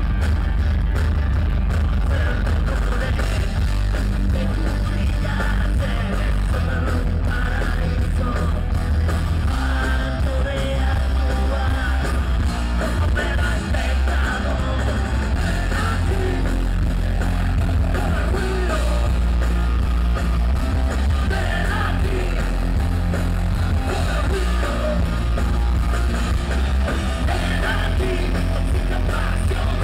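Live rock band playing loud through a PA: electric guitars, bass guitar and drums, with a male lead vocal singing over them. The bass and kick drum are heavy.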